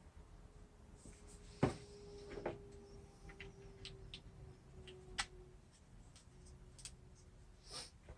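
Scattered light clicks and taps of small parts being handled while a window regulator motor is taken apart, the sharpest about a second and a half in. A faint steady hum runs underneath for several seconds.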